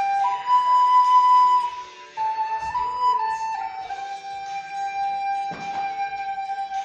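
Recorder (blockflute) playing a song melody in long held notes that step from one pitch to the next, with a short break about two seconds in.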